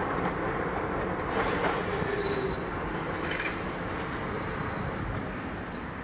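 Electric street tram rolling past at close range, its wheels running on the rails with a thin, high squeal near the middle.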